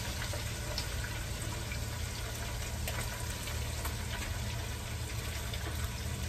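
Fish frying in hot oil in a deep pot: a steady sizzle with scattered small pops of spattering oil.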